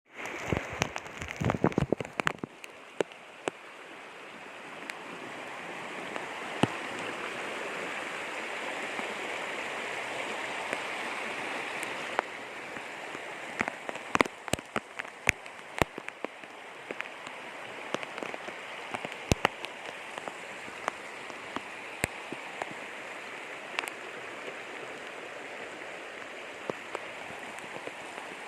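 Heavy rain falling steadily, a continuous hiss broken by frequent sharp drop impacts, with a dense cluster of louder hits in the first couple of seconds.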